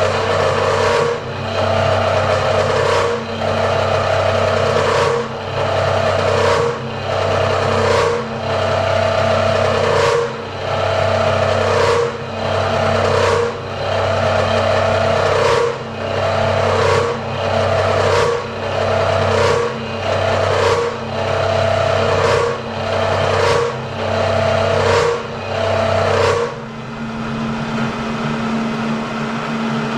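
Bridgeport milling machine cutting a slot, the cutter's chattering whine swelling and easing in a steady rhythm about every second and a half. Near the end the cutting stops, leaving the motor and spindle humming steadily.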